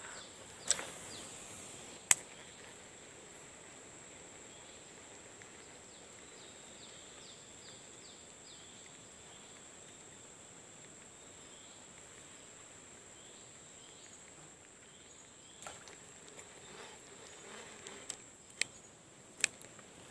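Quiet outdoor ambience with an insect's steady high-pitched buzz throughout. There are two sharp clicks in the first couple of seconds and a few more clicks near the end.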